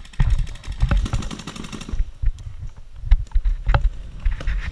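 Footsteps and gear jostling of a paintball player moving between bunkers, with a rapid string of paintball marker shots, about ten a second, over the first two seconds and a few single sharp pops later.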